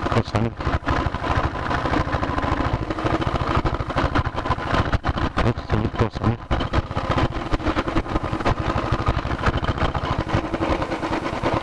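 Motorcycle engine running at low road speed while the bike is ridden, heard from the rider's seat as a steady, rapid beat of exhaust pulses.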